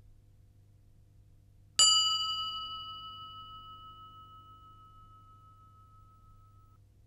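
A single bright chime strikes once, about two seconds in. It rings on with one clear tone that slowly fades away over about five seconds.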